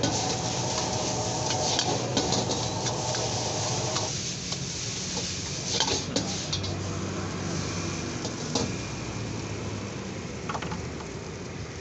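Metal ladle scraping and knocking against a carbon-steel wok as noodles are stir-fried and tossed, with frying sizzle over a steady low hum. Sharp clacks come now and then, a cluster about 6 s in.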